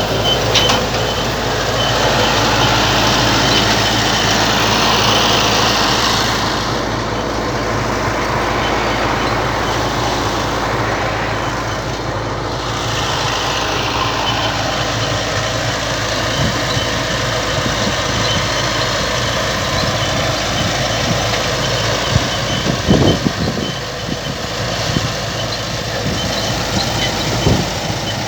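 Farm harvesting machinery running steadily with a high, rapidly repeating squeak. The squeak fades for a while in the middle and then comes back, and two sharp knocks sound near the end.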